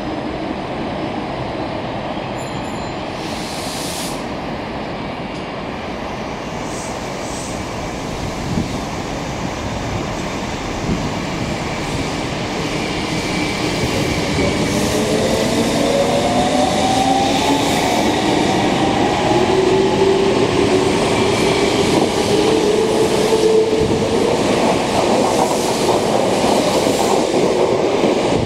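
Semboku Rapid Railway 7000 series electric train pulling out of the station and accelerating past. From about halfway through, its traction motors whine in rising tones, and the sound grows louder as it speeds up.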